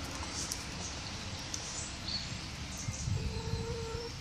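A domestic hen gives a soft, drawn-out call lasting about a second near the end, over a steady outdoor background.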